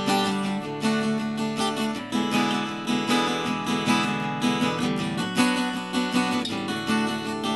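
Acoustic guitar strummed in a steady rhythm, chords changing every second or two: an instrumental passage of a song.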